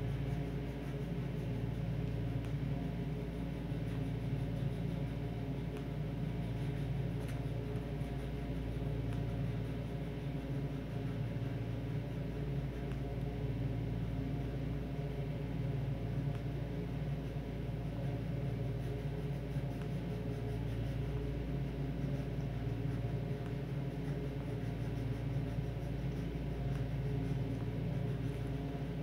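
A steady low mechanical hum made of several constant tones, running evenly without change.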